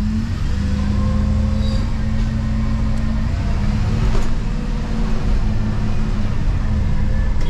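Diesel engine of a Dennis Eagle Elite 6 refuse truck running, heard from inside the cab as a steady low drone.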